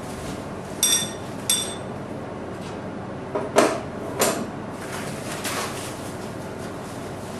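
Blum ORGA-LINE foil and film dispenser being handled: two light clicks with a short metallic ring about a second in, then a quick run of louder knocks and rasps around the middle.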